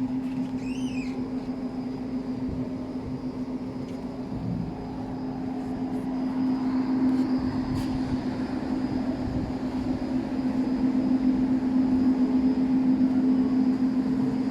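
A motor's steady drone: a constant low hum over a rushing noise, growing louder from about halfway through.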